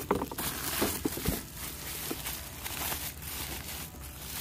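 Plastic bubble wrap crinkling and rustling as it is handled and pulled off a cast iron bacon press, with a few sharper clicks and knocks in the first second and a half.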